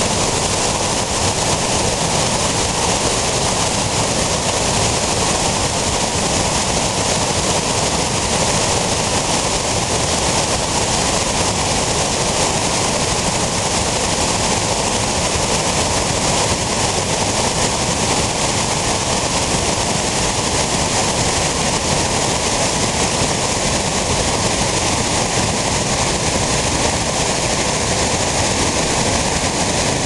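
Waterfall: white water pouring and splashing over rocks close to the microphone, a loud, steady rush.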